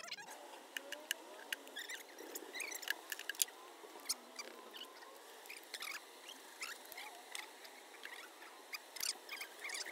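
Feral honeybee colony buzzing as its comb is opened up, with single bees passing close by in hums that rise and fall in pitch. Many sharp ticks and clicks are scattered through it.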